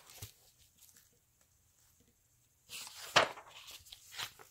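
Stiff picture-book pages being turned and handled: a short paper rustle with a sharp snap about three seconds in, then a softer rustle near the end.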